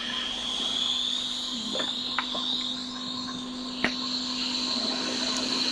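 Hot air rework station blowing steadily, a high whine over a low hum, heating a blown capacitor on a MacBook logic board so it can be lifted off. A few faint ticks sound against it.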